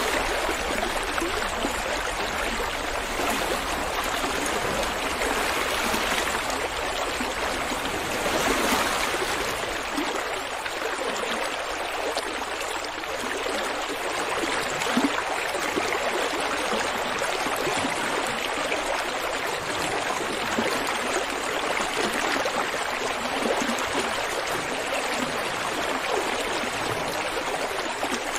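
Steady rushing water, like a flowing stream, with slight swells and no break.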